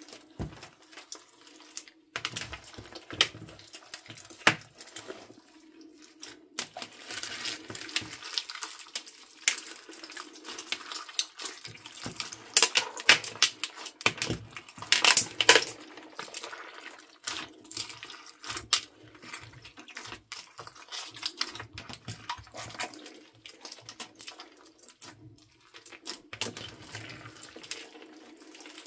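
Hands kneading and squishing a large mass of slime mixed with beads, foam balls and sequins: irregular wet squelches and sticky clicks.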